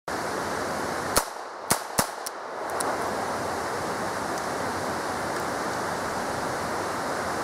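Four sharp reports from a USFA ZiP .22lr pistol in about a second, the last three quicker together, over a steady hiss of wind noise.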